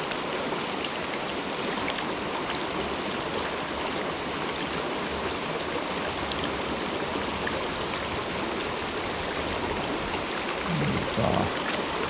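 Mountain stream water running steadily over rocks, an even rushing with no breaks.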